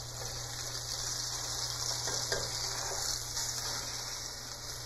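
Floured yellowtail snapper fillet sizzling in hot coconut oil in a stainless steel skillet, frying on its second side: a steady hiss that swells slightly through the middle and eases near the end.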